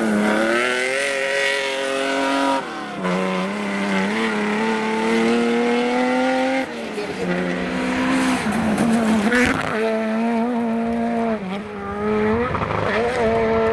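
Rally car engines accelerating hard on a gravel stage, revving up and changing gear several times, so the pitch climbs and drops back at each shift. Gravel is thrown up under the tyres.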